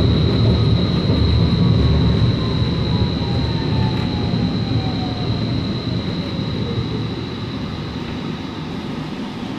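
Portland Streetcar heard from inside while running and slowing: a low rumble of the car on its rails, a steady high whine, and a motor whine that falls slowly in pitch as the car decelerates, the whole gradually getting quieter.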